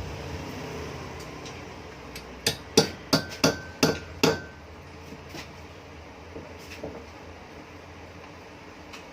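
Six sharp strikes in quick succession, about three a second, the later ones leaving a brief ringing tone. A low rumble fades away at the start.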